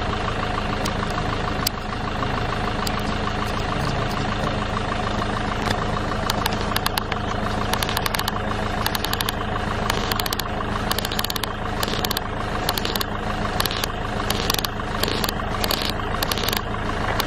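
A car engine running steadily at a low, even hum. From about six seconds in, irregular sharp clicks sound over it.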